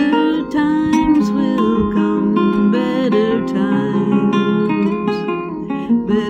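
Nylon-string harp guitar played fingerstyle: a plucked melody over sustained bass notes.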